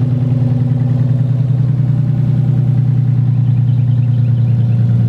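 Nissan 300ZX's non-turbo VG30DE V6 running steadily through a single-exit Z1 exhaust, now running smoothly with its misfire cured by a replacement coil pack.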